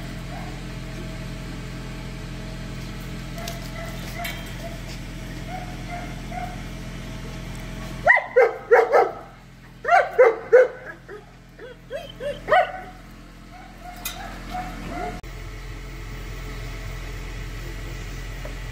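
Alabai (Central Asian Shepherd dog) barking about halfway through: a quick run of four barks, a second run of three, then a few weaker barks and one last bark.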